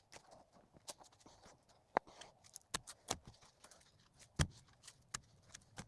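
A shovel digging in dirt: irregular scrapes and sharp chops of the blade, about half a dozen over a few seconds.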